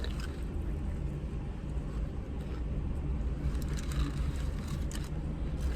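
Steady low hum inside a car with the engine running, with a few faint smacks and clicks of chewing on fried chicken between about three and five seconds in.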